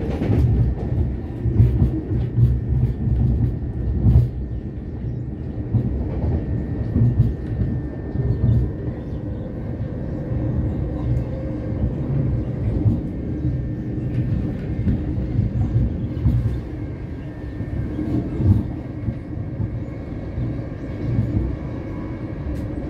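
Electric passenger train running at speed, heard from inside the carriage: a steady low rumble with a faint steady high whine and occasional clicks.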